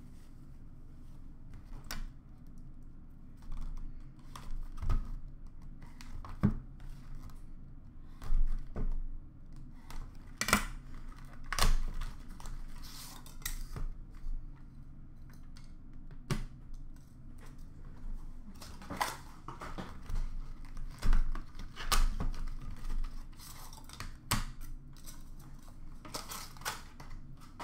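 Hockey card boxes and packs being opened by hand: cardboard flaps and wrappers rustling and tearing, with irregular sharp clicks and taps, over a faint steady low hum.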